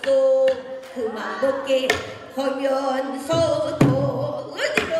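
Pansori singing: a woman's voice holding long, wavering notes, accompanied by several sharp strokes on a buk barrel drum played by the gosu drummer.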